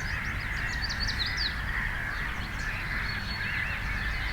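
Wild songbirds singing, with many quick high chirps and fast sweeping notes over a steady background hiss and low rumble.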